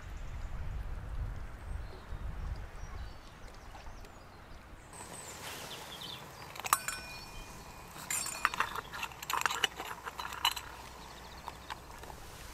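Metal camping pot and its wire handle clinking against a folding metal windscreen around a small lit camp stove as the pot is handled and set on the flame: one sharp clink in the middle, then a quick run of clinks and rattles.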